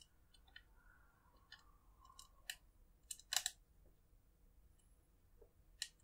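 Faint small clicks and taps of plastic and metal as an M.2 NVMe SSD is handled and seated into its motherboard slot. The loudest is a quick cluster of clicks about three and a half seconds in, with single clicks a second before and near the end.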